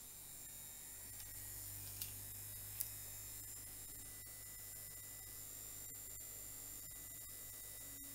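Small electric fan running with a steady buzzing hum, blowing through a makeshift duct into a narrow channel. The hum comes up about a second in, and there are two light clicks shortly after.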